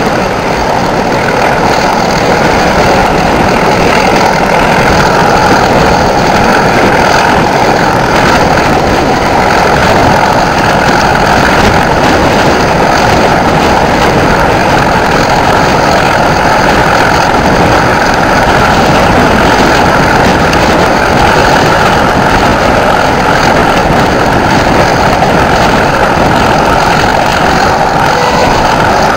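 Class 31 diesel locomotive 31108's English Electric V12 engine working hard under load as it hauls the train, a loud, steady drone heard from an open carriage window close behind it, mixed with the rush of the moving train.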